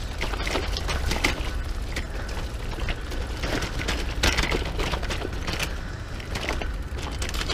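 Brompton folding bicycle rattling and knocking as it rolls over a rough dirt footpath, with many irregular clicks over a steady low rumble.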